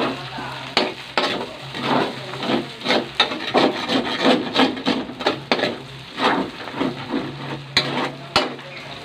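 Spatula stirring and scraping onions frying in hot oil in a metal wok, the oil sizzling, with short scraping strokes about two a second.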